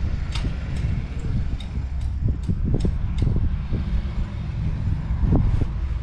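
Wind buffeting the microphone: a steady low rumble with irregular gusty thumps and a few faint ticks.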